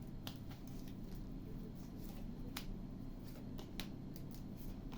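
Tarot cards being handled and shuffled, giving a few light, separate clicks and snaps over a low steady room hum.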